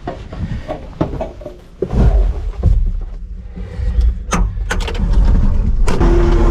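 Kubota SVL75-2 skid steer's diesel engine running low with several sharp clicks and clunks from the cab and controls, then throttled up near the end to a steady drone.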